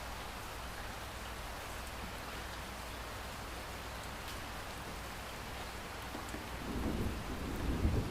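Steady rain falling, with occasional drops ticking, and a low rumble of thunder building up and growing louder in the last second or two.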